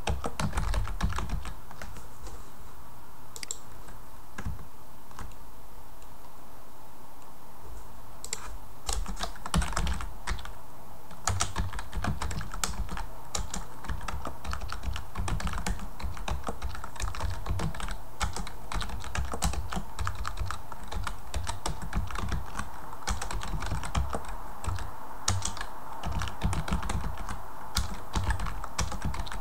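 Typing on a computer keyboard: irregular runs of keystroke clicks, with a lull of several seconds shortly after the start.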